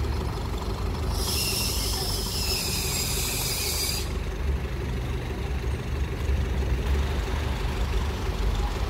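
City street traffic: a steady low rumble of idling vehicle engines. About a second in, a high hiss starts and runs for about three seconds before cutting off suddenly.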